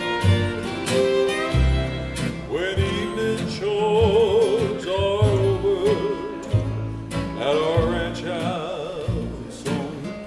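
Acoustic western string band playing: two acoustic guitars strumming a steady rhythm over upright bass, with fiddles. Two long held melody passages with vibrato swell over the rhythm, the first a few seconds in and the second near the end.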